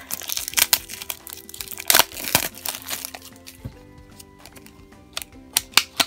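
Plastic wrapping crinkling and a cardboard sleeve being pulled off a small plastic toy lunchbox, with sharp crackles and clicks. Near the end come the clicks of the lunchbox lid being opened. Quiet background music plays underneath.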